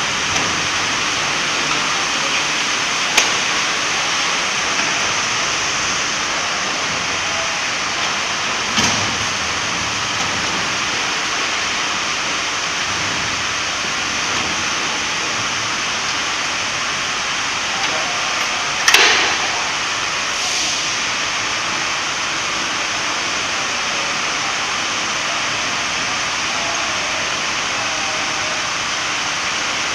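Steady hiss of room noise with a few short, sharp metal knocks as a vacuum circuit breaker is handled and positioned on its lifting truck; the loudest knock comes about two-thirds of the way in.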